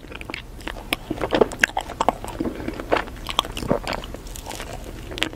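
Close-miked eating sounds of a person biting and chewing ice cream: a steady run of irregular crunches and sharp mouth clicks.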